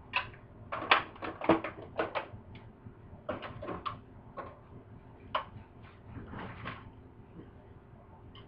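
Trash from a meal being handled and packed away: a run of clicks, knocks and rustles of containers and wrappers, loudest in the first two seconds and dying away after about seven.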